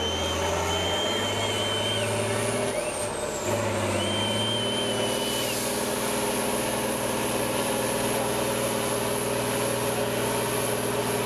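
Tatra 815 truck's diesel engine held at high revs under heavy load as it struggles up a very steep slope, running steadily with a high whine above it. A thin high whistle comes and goes twice, in the first two seconds and again about four seconds in.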